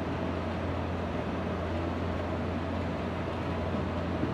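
Steady fan noise over a constant low hum.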